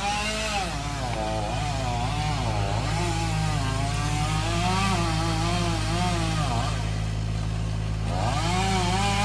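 Chainsaw running and cutting, its pitch rising and falling as the throttle and load change while big pieces are cut from a dead tree's spire. A steady low engine drone runs underneath.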